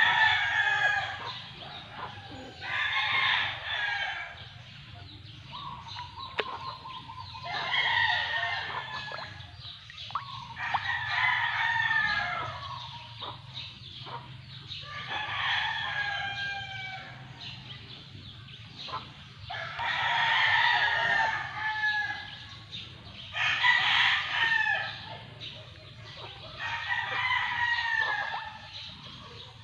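Roosters crowing again and again, a call about every three to four seconds, over a steady low hum.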